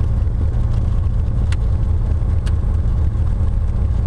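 Cessna T-41's 210 hp piston engine and constant-speed propeller running steadily at low taxi power, heard as a loud, even low drone inside the cockpit. Two faint clicks come about a second and a half and two and a half seconds in.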